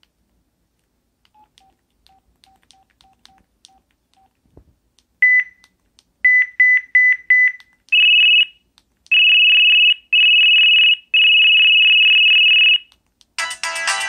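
An LG VX8300 flip phone's speaker previews its preloaded beep ringtones one after another. First comes a run of faint low beeps, then one loud higher beep, a quick string of five loud beeps, and four long trilling ring bursts. Near the end a busier melodic ringtone starts.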